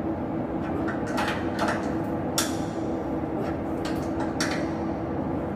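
Metal clinks and knocks from hand work on a blower exhaust fan motor being refitted: a handful of sharp taps, the loudest about two and a half seconds in, over a steady low hum.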